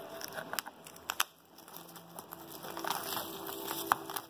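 Plastic shrink wrap crinkling and crackling as it is torn and peeled off a Blu-ray case, with a few sharp clicks from handling the case.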